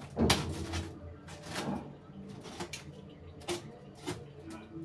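Plastic cling film rustling and crinkling in several short bursts as vegetables are wrapped in it, over a low steady hum.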